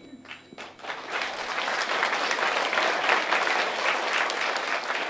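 Audience applauding: a few separate claps at first, building within about a second into steady applause.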